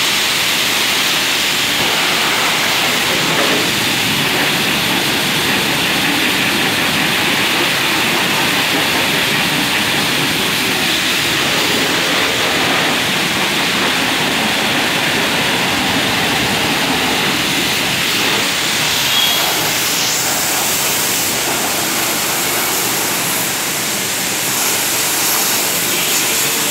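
High-pressure washer jet spraying water onto a car's bodywork, a steady hiss of spray and splashing.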